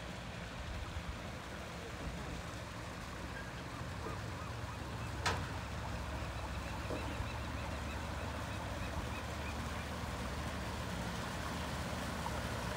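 Motorboat engine running steadily as the boat approaches, a low hum that grows gradually louder. There is a single sharp click about five seconds in.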